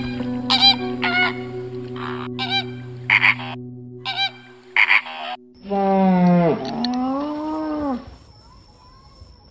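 Flamingos honking: short, nasal, goose-like honks repeated every half second to a second over soft background music. About six seconds in comes one long, low, mooing call lasting about two seconds that falls and then rises in pitch.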